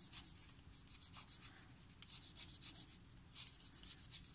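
Utility-knife blade scraping and shaving the cut edge of a styrofoam ball half: short runs of rapid, light scratchy strokes with brief pauses between them.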